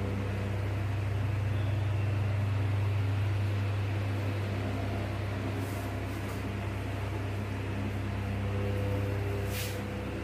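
Steady low hum with an even background hiss: the room noise of a classroom. A few short scratches come in the second half, the last and loudest near the end.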